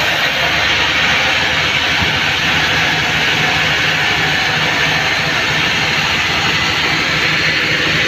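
Band-saw mill running steadily, its blade cutting lengthwise through a mahogany log. A continuous hiss of the blade in the wood sits over a steady motor hum.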